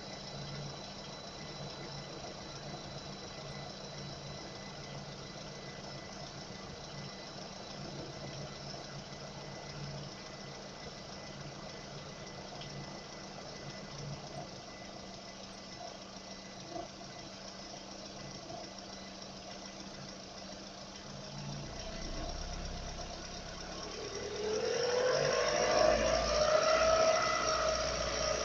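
Car engine idling with a knock, then revved up near the end: the pitch climbs and the engine holds at higher revs, louder.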